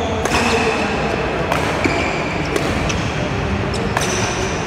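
Badminton doubles rally: four sharp racket strikes on the shuttlecock, roughly a second apart, with short high squeaks from court shoes on the floor between them.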